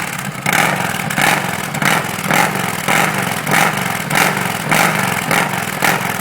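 Yamaha Midnight Star 950's V-twin engine running through a Roncar Scorpion 2Way custom exhaust with its butterfly valve open in the sport setting. It gives a loud, rhythmic exhaust note that swells in even pulses a little under twice a second.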